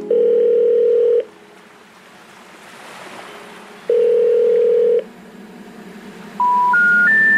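Background music track: two long steady beeping tones about a second each, then three short beeps stepping up in pitch near the end, over a faint low music bed.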